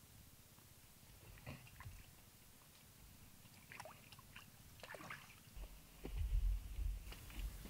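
Faint sloshing and a few scattered small splashes of water, like hands working wet mud in shallow water. About two-thirds of the way through, a louder low rumble comes in.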